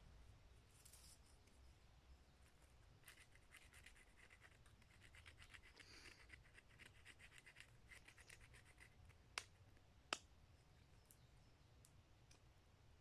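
Faint, quick scraping of a knife working birch bark by hand, in a run of even strokes, then two sharp clicks less than a second apart.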